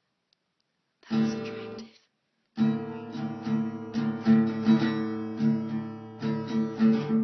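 Acoustic guitar strummed: a single chord about a second in, then after a short pause a steady run of strummed chords.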